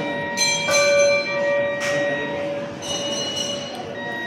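Hindu temple bells being struck, about four strikes in quick succession. Each strike rings on with a clear, lingering tone that overlaps the next.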